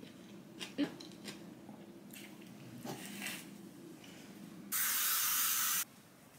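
Faint handling taps and rustles, then one continuous hiss of an aerosol hairspray can, lasting about a second, near the end.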